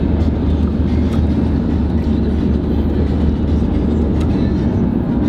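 Inside a moving car: steady low engine and road rumble.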